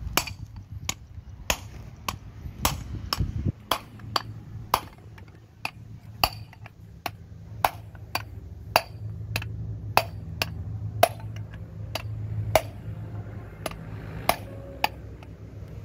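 Hammer blows on a steel punch driving a bearing out of its cast metal housing: sharp metallic strikes with a short ring, about two a second at an uneven pace.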